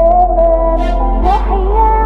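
Background music: a slow, wavering melody over a steady low bass.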